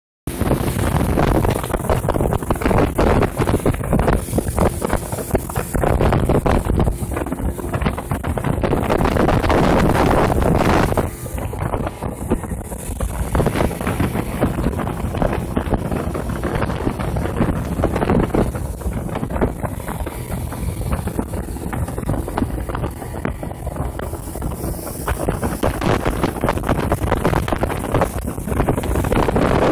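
Speedboat running at speed, its Mercury outboard motor heard under heavy wind buffeting on the microphone and rushing water. It gets a little quieter about eleven seconds in.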